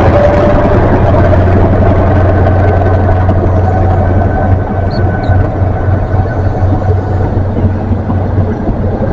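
Diesel engine of a GWR InterCity 125 (Class 43) power car running with a steady low drone as the train moves along the platform, easing off slightly about halfway through.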